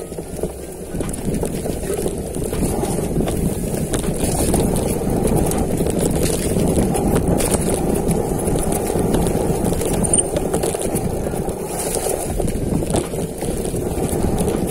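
Wind rushing over the microphone of a mountain biker's camera, with the bike's tyres and frame rattling over a dirt trail on a downhill run; it grows louder over the first few seconds as the bike picks up speed.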